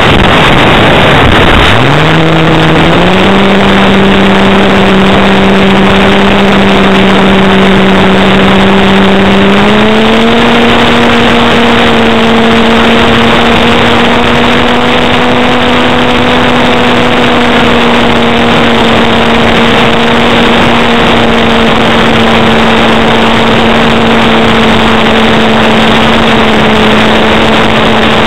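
Axi brushless electric motor and APC 10x5 propeller of an RC aerobatic plane, heard through the onboard camera's microphone under heavy wind rush. About a second and a half in, the motor spools up from near stop into a steady drone, steps up in pitch again around ten seconds in as the throttle is advanced, and holds there.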